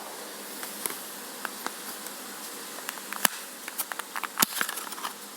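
Scattered small plastic clicks and taps, few at first and more frequent in the second half, from handling a Measy wireless mouse/trackpad device and opening its battery compartment to get at the batteries.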